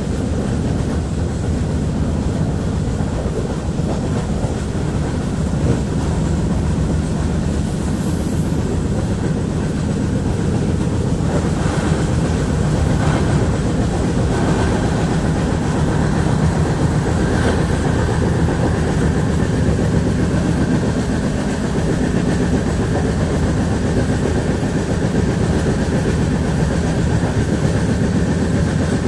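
Steady, unbroken rumble and rattle of a moving vehicle, in the manner of a train running on its rails.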